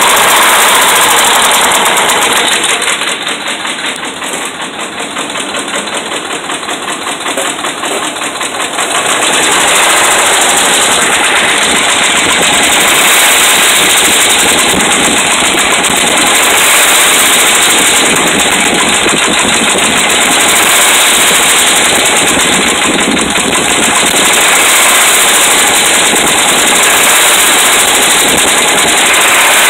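Dodge Ram's 5.7 Hemi V8 running with a rapid knocking from bad connecting-rod and crankshaft bearings. The sound drops quieter from about 3 to 9 seconds in, then comes back louder and holds steady.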